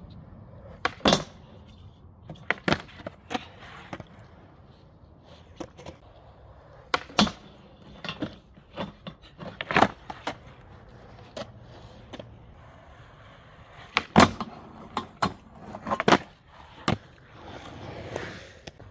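Skateboard on concrete: wheels rolling, with a series of sharp clacks from the tail popping and the board landing and striking a metal flat bar. Near the end the rolling grows louder as the board passes close by.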